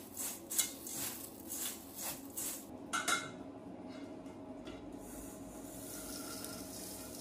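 A hand rubs and crushes crisp fried curry leaves into dry puffed rice in a stainless steel bowl: soft crunching rustles, about two strokes a second, for the first three seconds. After that comes a faint, steady rustle as the puffed rice is tipped into a pan of fried nuts.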